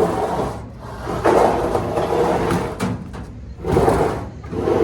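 A heavy washing machine being shoved and dragged over a hard surface: a few loud bursts of scraping and rubbing, the longest lasting about a second and a half.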